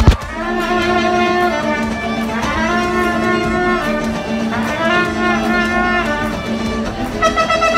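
Instrumental music with long held melodic notes changing in phrases.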